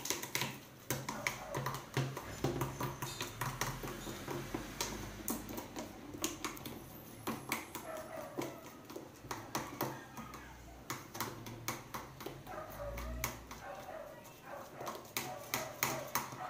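Slime mixture being stirred by hand in a bowl: irregular clicks and knocks of the utensil, several a second.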